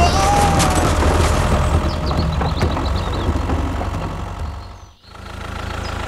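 Steady low rumble of a tractor engine. It dips away to almost nothing about five seconds in, then comes back.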